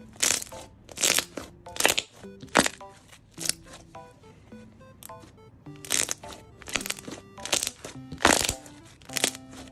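Bubblegum slime being squeezed and pressed by hand, giving about ten loud crackling pops, roughly one every 0.8 seconds, with a pause of about two seconds in the middle.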